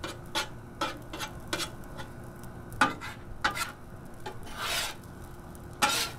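Metal spatulas scraping and tapping on the steel top of a Blackstone 22-inch griddle as rice is tossed and mixed, with a low sizzle of rice frying in butter underneath. There are about ten short, irregular strokes and one longer scrape a little before the end.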